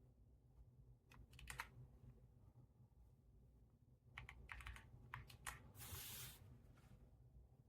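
Faint keystrokes on a mechanical number pad with Gateron Brown switches and PBT keycaps, in short scattered runs: a few presses about a second in, then a quicker flurry from about four to five and a half seconds in.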